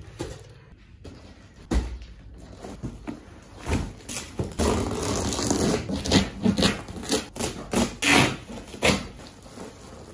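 Taped plastic wrapping on a parcel being handled and torn open: crinkling and ripping, sparse at first and busier from about halfway, with a run of sharp rips near the end.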